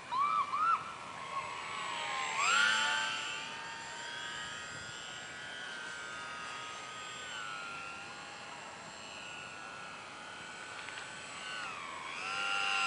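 Electric motor and propeller of a small RC model airplane whining in flight, the pitch sliding up and down with throttle and distance. It swells about two and a half seconds in and again near the end. A few short quick chirps sound in the first second.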